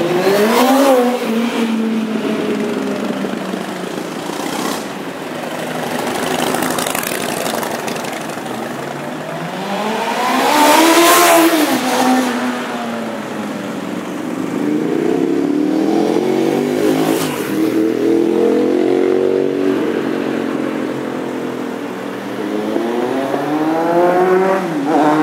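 Motorcycles riding past one after another close by, each engine note climbing as it nears and dropping as it goes past, several times over. The loudest pass comes about eleven seconds in.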